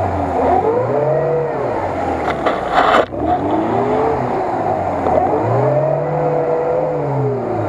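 Lada Niva's four-cylinder engine revved up and down several times, the longest surge near the end, as the car churns in deep mud and water, stuck and trying to pull free. A short sharp noise comes about three seconds in.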